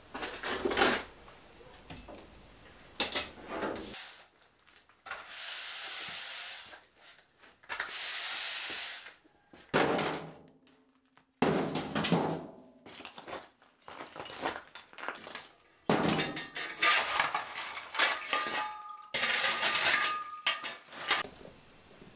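Stones and rubble clattering and scraping as they are shovelled and tipped into a metal wheelbarrow, in repeated bursts of knocks, with two short stretches of steady hiss in the middle.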